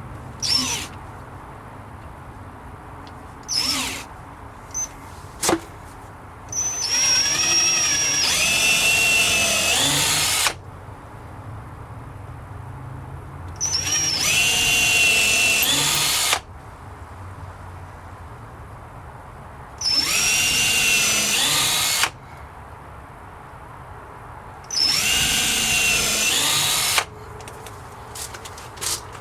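Power drill driving screws into the wooden gate to mount a hasp latch: two quick trigger taps, then four runs of a few seconds each, every run starting with a quick rise in pitch as the motor spins up.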